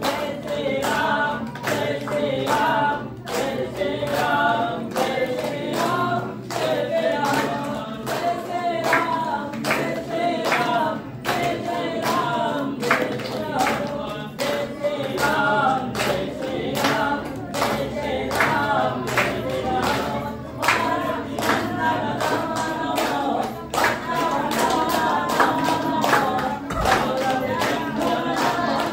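A group of devotees singing a Hindu devotional hymn together, with a steady clapped beat.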